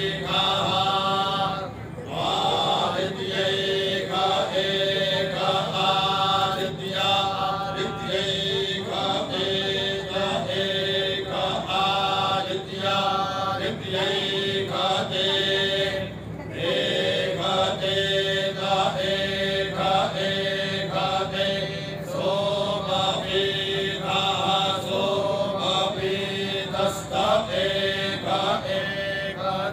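A group of men reciting Vedic mantras together in unison, led by one voice on a microphone. The chant moves in short, evenly paced phrases with brief pauses for breath about two seconds in and again around the middle, over a steady drone.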